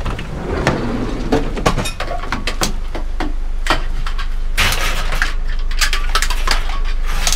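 Scrap metal being handled: a run of clanks, clinks and rattles, busier in the second half, over a steady low rumble.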